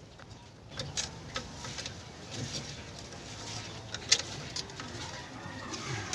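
Scattered light clicks and taps of hand tools and small metal brake parts being handled while a wheel brake cylinder is taken apart, with birds calling faintly in the background.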